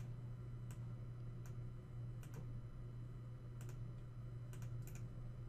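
Scattered clicks of a computer mouse, about half a dozen, a few in quick pairs, over a steady low electrical hum.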